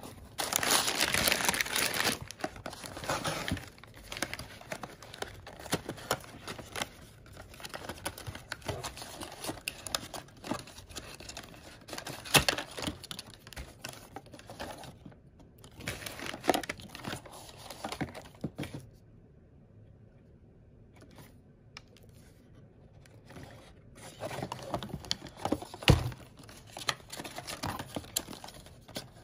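Kraft packing paper crinkling and rustling as it is handled in a cardboard shipping box, loudest in the first two seconds, then the light clicks, taps and scrapes of paperboard product boxes being opened and handled. A quiet lull comes about two-thirds through, and a single knock near the end.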